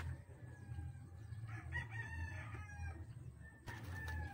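A rooster crowing once, a call of about a second and a half starting a second and a half in, over a steady low rumble. Near the end come a few sharp knocks as pieces of wood are handled at the fire.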